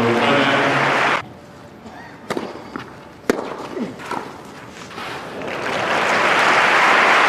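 Tennis crowd applauding, cut off suddenly about a second in. Then a few sharp racket-on-ball strikes in a rally, and applause and cheering swelling up near the end as the point is won.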